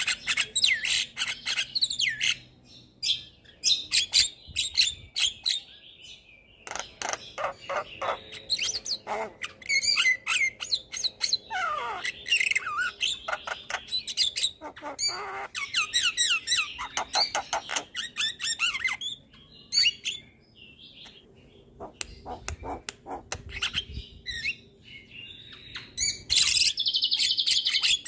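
Javan myna singing a long, varied song of rapid clicking rattles, squeaky chatter and whistles in repeated bouts with short pauses. There is a long falling whistle about twelve seconds in, and a harsh rasping call near the end.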